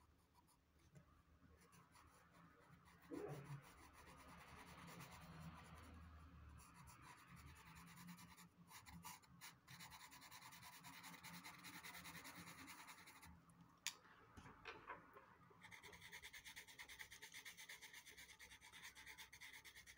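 Faint scratching and rubbing of a Derwent pastel pencil shading on Clairefontaine Pastelmat paper, with a single sharp tap about two-thirds of the way in.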